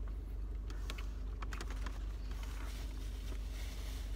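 A man chewing a mouthful of sandwich, with a few small wet mouth clicks about a second in, over the steady low hum of a car cabin.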